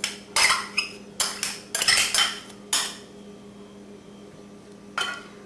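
A kitchen utensil clinking and scraping against a bowl as cooked quinoa is added to the salad: a quick run of knocks and scrapes in the first three seconds, then one more near the end.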